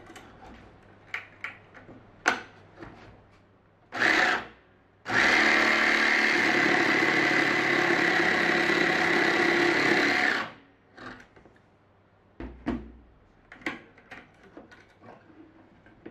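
Cordless jigsaw cutting along a wooden board for about five seconds, steady throughout, after a brief half-second burst of the saw a second earlier. Before it, clicks of a toggle latch clamp and the board being handled; after it, clicks and a dull knock as the cut wood pieces are moved.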